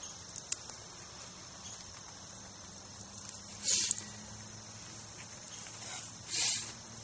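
Two brief rustles as dry corn husks and a cloth are handled by hand, one about halfway through and one near the end, over a steady high chirring of insects in the grass.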